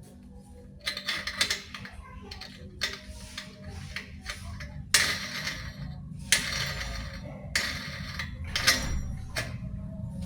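Metal parts clattering and scraping in about six short bursts, over a steady low hum.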